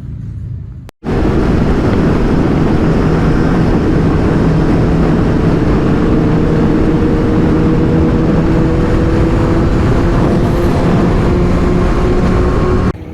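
Sport motorcycle riding at a steady high speed, engine note rising slightly in pitch under heavy rushing wind noise. It starts abruptly after a short gap about a second in and cuts off just before the end.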